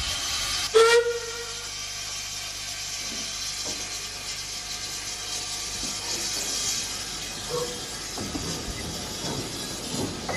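Andrew Barclay industrial steam locomotive hauling a brake van, with a steady hiss throughout and one short, loud whistle toot about a second in.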